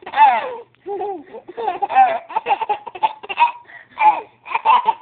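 Baby laughing hard in repeated high-pitched bursts with short breaths between them.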